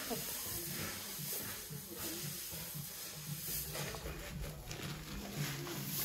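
Dried maize kernels rustling and pouring as hands stir and scoop them through a heap, mixing in insecticide dusting powder to protect the stored grain.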